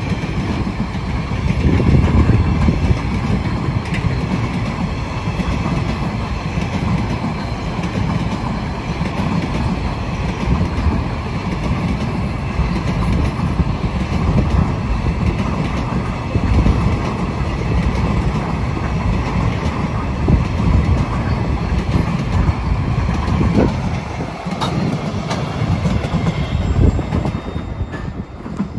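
Empty freight train wagons, yellow log and container flats, rolling past: a steady rumble of steel wheels on rail with scattered clicks and clatter over the rail joints.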